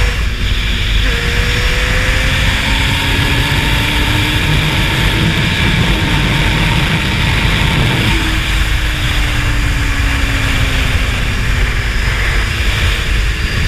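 Honda CBR600F4i's 599 cc inline-four with a slip-on exhaust, under way. Its pitch climbs slowly in gear after a shift about a second in, then drops near eight seconds and falls away as the bike slows, over heavy wind rush.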